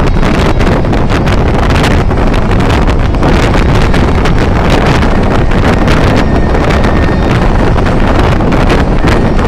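Steady wind rushing over a phone's microphone at a moving car's side window, mixed with the car's road noise in a road tunnel.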